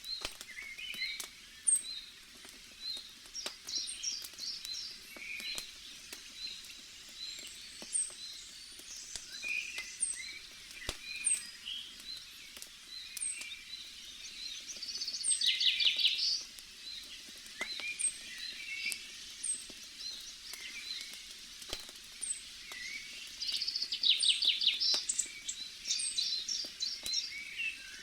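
Campfire crackling with scattered sharp pops, under a forest ambience of birds chirping and calling. Twice, about midway and near the end, a louder rapid bird trill stands out.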